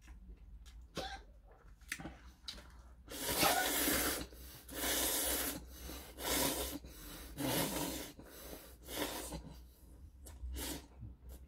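A person slurping ramen noodles, about five loud slurps in a row starting some three seconds in, each up to about a second and a half long. Before them there are a few faint mouth clicks.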